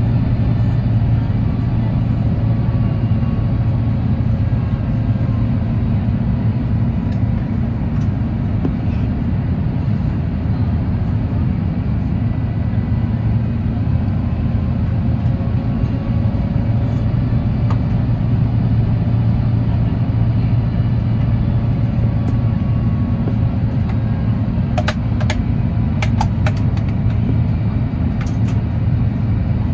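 Steady cabin noise of an Airbus A350-1000 descending on approach: a low rumble of airflow and its Rolls-Royce Trent XWB-97 engines, with a faint engine tone drifting slowly in pitch. A few light clicks near the end.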